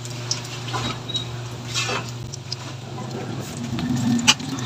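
Sliced garlic frying gently in oil in a steel wok, with a few sharp clinks of a metal spatula against the wok, the loudest near the end. A low hum stops about halfway through.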